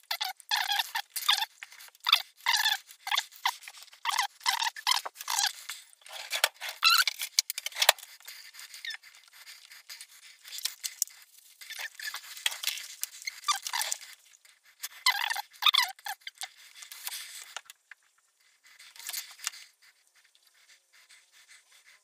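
Water draining out through a small S-bend in a Bosch dishwasher's translucent plastic side panel, trickling and gurgling in quick irregular spurts. The spurts thin out after about 17 seconds and become occasional faint drips.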